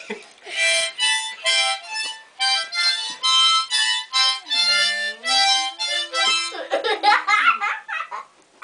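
Harmonica played in short repeated chords. About halfway through, a boxer dog howls along: a long low tone that dips, rises and holds.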